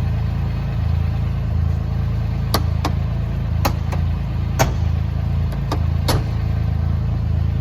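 Polaris Ranger 1500 XD's three-cylinder engine idling steadily after a remote start. A run of about eight sharp clicks comes through the middle.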